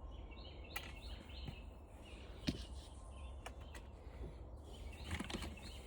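Faint scattered clicks and taps from plastic fan parts being handled during disassembly, over a low steady hum, with small birds chirping in the background.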